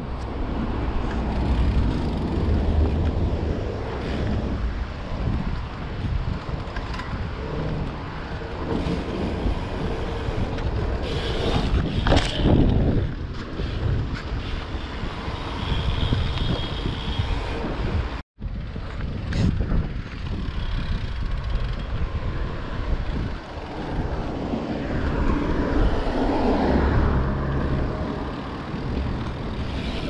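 Wind buffeting the microphone of a chest-mounted camera while riding a BMX bike: a steady low rush that swells now and then and cuts out briefly a little past halfway.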